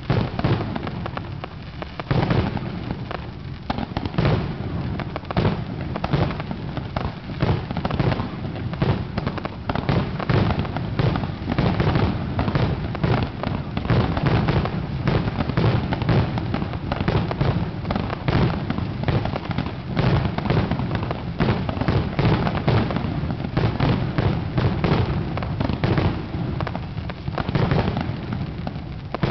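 Aerial fireworks shells launching and bursting in a rapid, continuous barrage, many bangs a second with no let-up.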